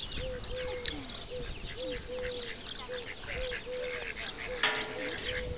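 Mallard ducklings peeping in a dense chorus of high, falling peeps, over a row of short low calls repeating about twice a second. A single harsh quack comes a little before the end.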